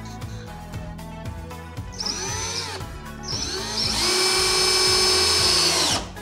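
Cordless drill driving screws into wood: two short spins that rise and fall in pitch, then a louder steady run of about two seconds that stops suddenly near the end. Background music plays underneath.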